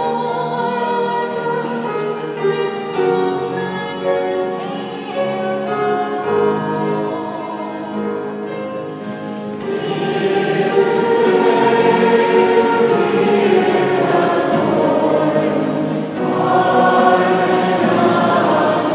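Choir singing slow sacred choral music in held, overlapping voices. The singing grows fuller and louder about ten seconds in, dips briefly, then swells again near the end.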